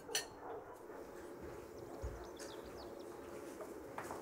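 Quiet morning room ambience with a faint steady hum and a few faint bird chirps about two and a half seconds in. There is a short click at the very start.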